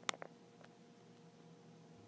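A couple of sharp clicks right at the start, then a Harbor Breeze ceiling fan's motor running with a faint steady hum.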